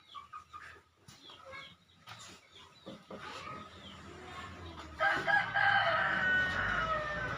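A rooster crowing once, one long call starting about five seconds in, after a few light knocks.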